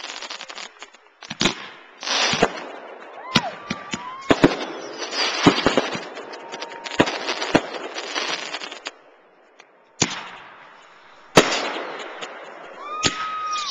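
Fireworks display: a string of sharp bangs from aerial shells bursting, with crackling and hissing between them. There is a lull a little after halfway, then a single very loud bang.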